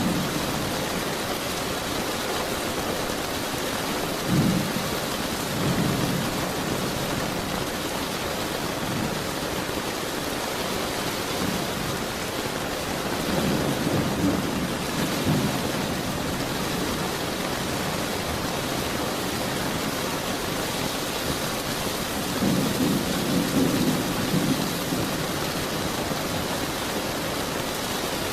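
Steady heavy rain, with distant thunder rumbling low three times: a few seconds in, around the middle, and again near the end.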